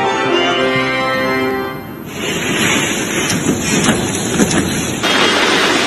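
A news theme tune's closing chord holds and fades out over the first two seconds. Then comes a steady hiss of heavy rain and wind, which shifts in character about five seconds in.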